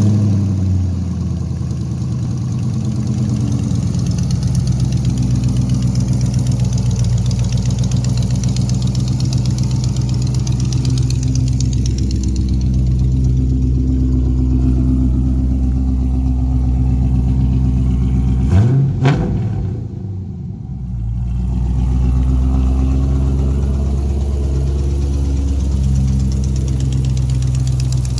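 GM LS3 6.2-litre V8 idling steadily. About two-thirds of the way in, the pitch briefly rises and falls, then the sound runs quieter and lower for a couple of seconds before it settles back to its even idle.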